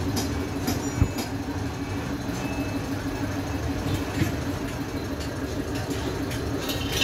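Steady drone of running machinery or an engine, with a sharp knock about a second in and a lighter one about four seconds in.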